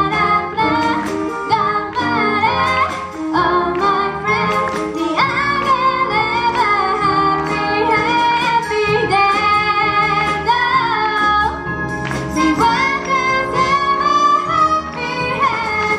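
A woman singing a pop song live into a microphone, accompanied by a school wind band with percussion.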